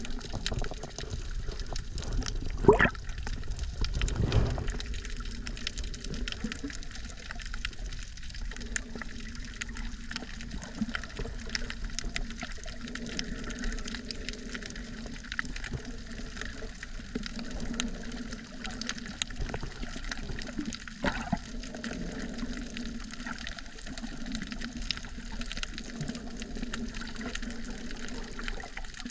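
Water heard through a camera held under the sea: a steady muffled wash with many faint scattered clicks, and two louder low swirls about three and four seconds in.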